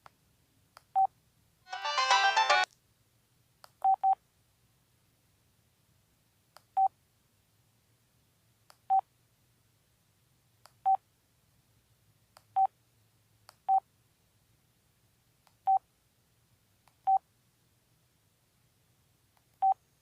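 LG 630 (PD6335) mobile phone's electronic sounds: a short jingle of several tones about two seconds in, then about a dozen short single-pitch key beeps, one to three seconds apart, as its buttons are pressed.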